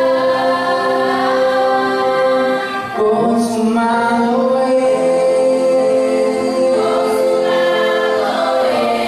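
A women's choir singing together in long, held chords, with a short break between phrases a little under three seconds in.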